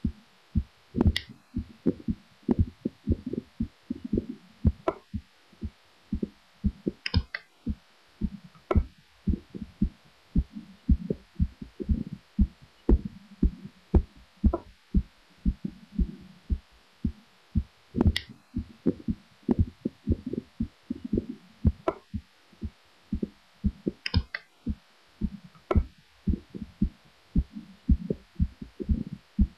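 Human heartbeat recorded up close: a steady run of low, muffled thumps in lub-dub pairs.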